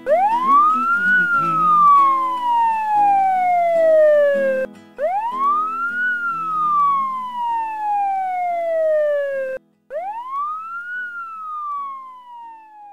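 A siren wailing three times: each wail rises quickly, then falls away slowly, and the last one fades out near the end. Music plays under the first two wails and stops just before the third.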